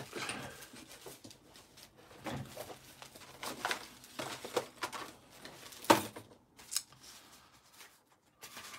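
Craft supplies being moved and cleared off a desk: scattered rustling and scraping, with one sharp knock a little before six seconds in.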